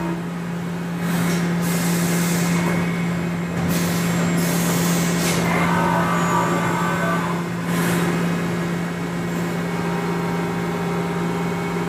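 Mazak Integrex I-150 mill-turn CNC machine turning a bar with a lathe tool, cutting dry without coolant: a steady hum from the running spindle with hissing cutting noise that surges several times, and a brief higher whine about six seconds in.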